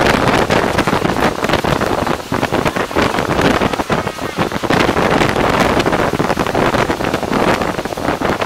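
Wind rushing and buffeting over the microphone from a moving train, loud and gusty, with the train's running rumble underneath.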